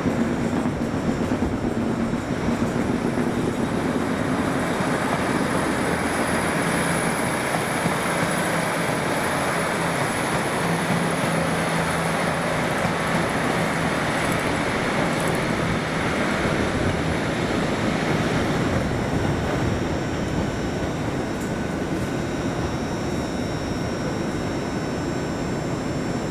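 A passenger train running at a station platform: steady rumble and hum from the train, easing a little about three quarters of the way through.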